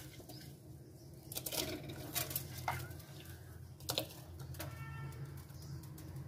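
Soaked rice and moong dal tipped into a pressure cooker of boiling water: soft splashes, with a few light knocks and rustles from the bowl and spoon, over a steady low hum.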